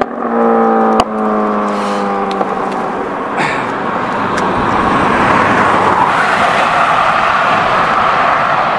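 Motorcycle engine running on the move, its note slowly falling and cut twice by sharp knocks. From about three seconds in, a steady rush of wind and road noise takes over.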